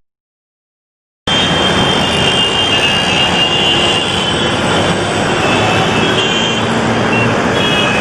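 Dense, steady road traffic noise that cuts in suddenly about a second in, after total silence.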